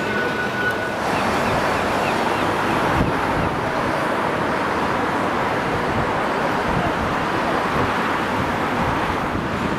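Steady wind rushing over the microphone, an even noise that covers the street sounds below. A faint thin whine stops about a second in.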